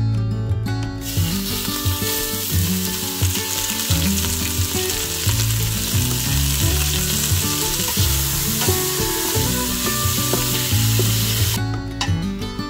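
Cubes of tri tip beef sizzling as they sear in hot olive oil in an Instant Pot's stainless steel inner pot on the high sauté setting, with background music underneath. The sizzle starts about a second in and cuts off about a second before the end.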